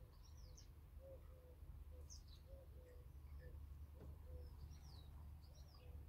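Faint garden birdsong: small birds giving short, high chirps and whistles at irregular moments, with a pigeon's low, soft cooing repeating underneath.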